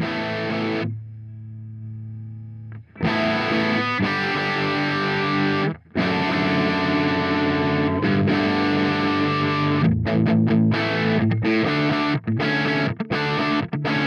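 Electric guitar played through a TC Electronic JIMS 45 (JTM45-style amp emulator) pedal on its red, higher-gain channel, recorded direct: overdriven chords. A chord is cut short about a second in and a quieter low chord rings, then loud held chords follow, turning into quick stop-start chord stabs in the last few seconds.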